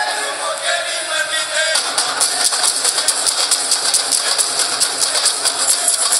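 Punjabi dhol drums and jingling hand percussion playing a fast, steady folk beat for Malwai giddha. Over the first couple of seconds a bending melodic line rides above the rhythm.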